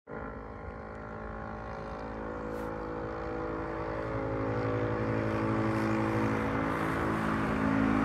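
A vehicle engine's steady pitched hum over road noise, growing gradually louder as it approaches.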